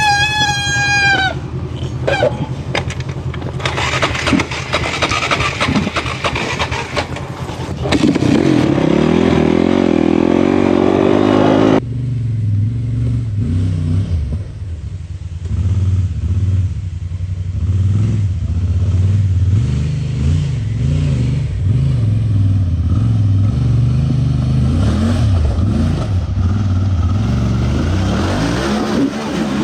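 Side-by-side UTV engine running under load on a rough trail, climbing in pitch as it revs up for a few seconds. About twelve seconds in the sound changes abruptly to a deeper engine drone that rises and falls with the throttle. A brief high tone falls in pitch at the very start.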